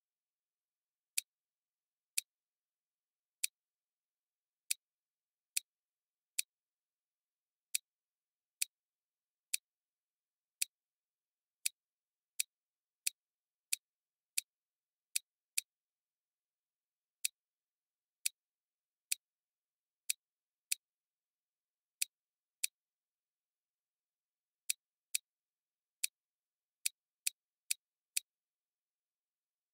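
Computer mouse clicks: about thirty sharp single clicks, one every half second to a second, as the view-rotation arrow buttons of a program are clicked. There is a pause of about two seconds near the end, then a quicker run of clicks.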